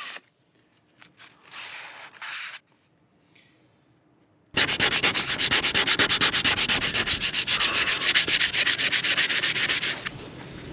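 Sandpaper rubbed quickly back and forth by hand along a wooden wand, a fast, loud run of rasping strokes that starts about halfway through and stops shortly before the end. Before it come a few short, quieter scuffs.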